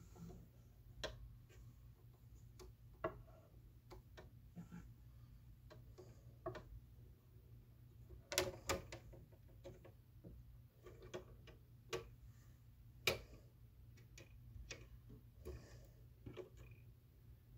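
Vinyl record surface noise in a quiet stretch of groove: scattered irregular clicks and pops over a low steady hum.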